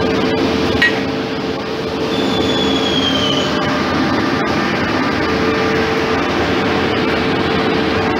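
Woodworking machinery running with a steady motor hum and dense mechanical noise, a brief high squeal sliding slightly down in pitch about two seconds in, and a few sharp clicks.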